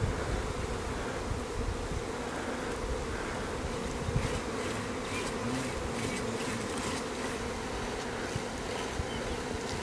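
Swarm of honeybees clustered on a tree branch, buzzing in a steady, dense hum.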